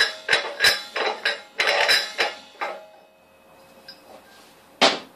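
Metal protective cap being unscrewed by hand from the neck of an argon cylinder: a run of metallic scrapes and clinks, about three a second, over the first two and a half seconds, then a single sharp knock near the end.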